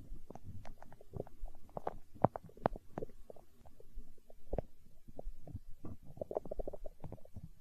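A hungry human stomach gurgling and growling: an irregular run of short bubbling pops and squelches, with a quick flutter of gurgles about six seconds in.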